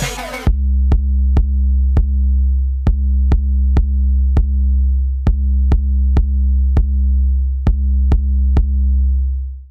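Electronic background music: a stripped-down passage with a held deep bass note under sharp drum-machine clicks in groups of three, which fades out near the end.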